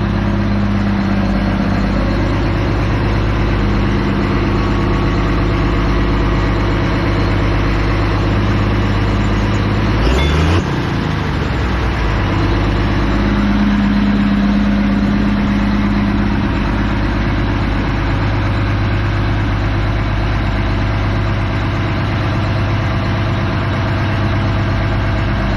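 A modified John Deere pulling tractor's engine idling steadily, with a short sharp break in the sound about ten seconds in.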